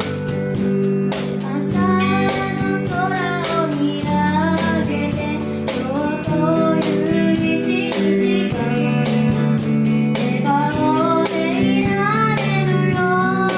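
A child singing a pop song with a live band of guitar and drums, the cymbals keeping a steady beat; the voice comes in about two seconds in.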